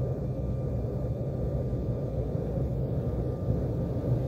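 Jet airliner's engines and wheels heard from inside the cabin as it rolls along the runway: a steady low rumble, growing slightly louder, with a faint thin whine above it.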